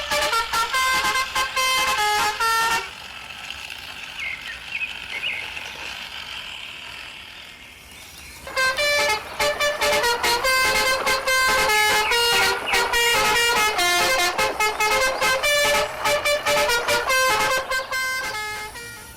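A musical truck horn honks out a quick tune of short notes at changing pitches. It stops about three seconds in and starts again at around eight and a half seconds, running on until near the end. Between the runs there is a quieter steady hiss with a few faint chirps.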